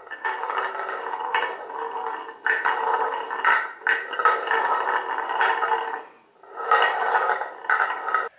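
A ball rolling round the circular tiers of a cat's track toy: a continuous rolling noise with a steady ringing tone, in three long runs broken by short pauses about two and six seconds in.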